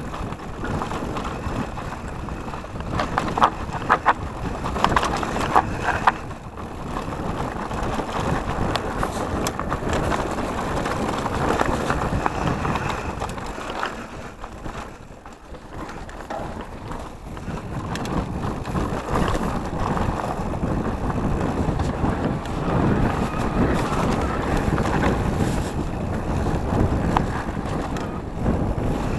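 Wind buffeting the camera microphone over the rattle and tyre noise of an electric mountain bike rolling fast down a rough dirt singletrack, with sharp knocks from the bike hitting bumps, most of them a few seconds in and again near the end.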